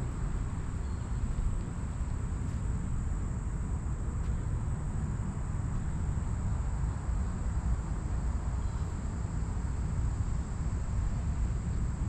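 A steady, high-pitched insect chorus over a constant low rumble.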